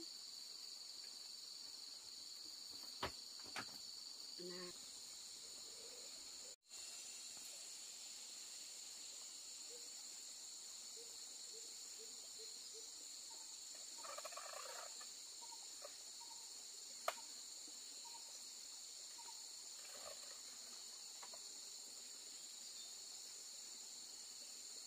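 Faint, steady chorus of insects, a continuous high ringing, with a few faint sharp knocks, the loudest a little past two-thirds of the way in. The sound cuts out completely for an instant about a quarter of the way in.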